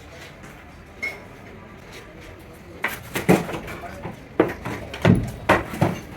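Metal tools and parts clinking and knocking against each other during brake booster repair work: one knock about a second in, then a quick run of sharp clatters in the second half.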